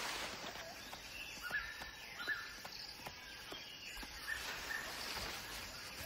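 Faint forest ambience with short bird chirps recurring about once a second, and a few light clicks.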